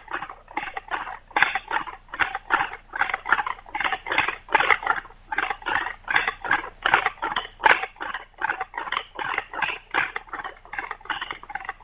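Wooden pump drill spinning its spindle into a wooden hearth board, the wood-on-wood friction squeaking in short rhythmic bursts, about four a second, as the pump strokes go back and forth. The friction is burning the spindle into the socket and raising smoke.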